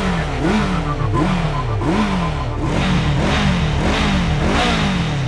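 Honda CB1100EX's air-cooled four-cylinder engine revved over and over through its 4-into-2 exhaust. The throttle is blipped about twice a second, and each rev rises sharply and falls back.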